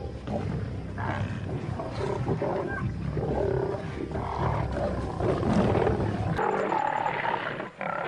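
Several lions growling together as they fight over and tear at a zebra kill. About six seconds in, the sound changes abruptly and loses its deep rumble.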